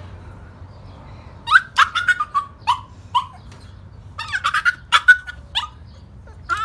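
Little dog making a string of short, high, squeaky whining yelps that bend down in pitch, in two bouts: one about a second and a half in, another about four seconds in.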